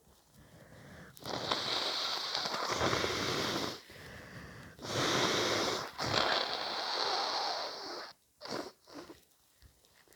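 A person with a cold blowing their nose hard: three long, snotty blows, then a couple of quick sniffs.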